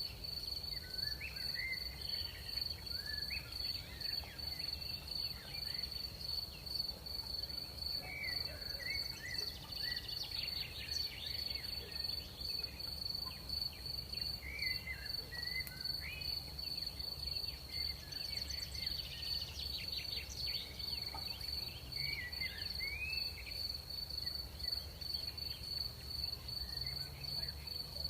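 Night insect chorus: a steady high cricket trill, with scattered short chirps and twitters throughout.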